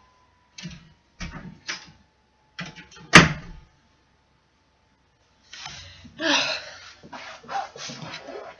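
Knocks and scrapes from someone moving about and handling things close to the microphone, with one sharp click about three seconds in. Then a run of rustling and scuffing near the end as the person comes up to the camera.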